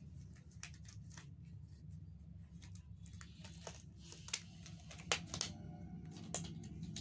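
Paper wrapper of a pair of latex examination gloves being opened and handled, crinkling and rustling, then the gloves being pulled onto the hands, with a few sharp snaps about four to five and a half seconds in.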